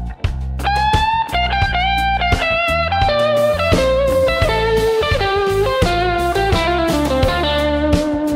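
Instrumental rock band playing: an electric guitar takes a melodic lead with string bends, the line stepping down in pitch and settling on a long held note near the end, over electric bass and a Gretsch drum kit.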